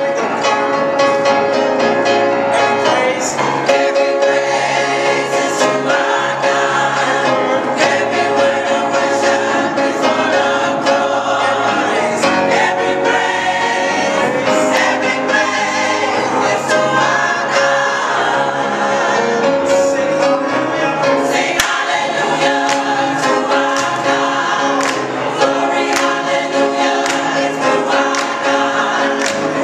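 Gospel choir singing with instrumental backing.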